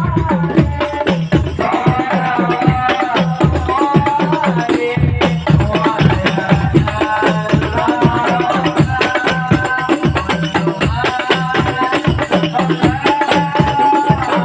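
Sholawat devotional singing, a wavering melismatic melody over fast, steady hand-drum percussion, played loud through a large sound system.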